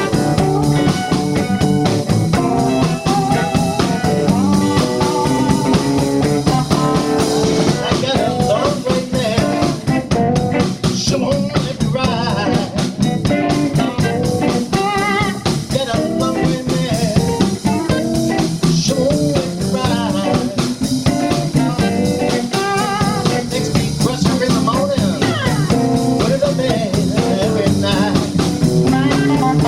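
Blues band playing live: two guitars with wavering, bent notes over bass and a drum kit keeping a steady beat.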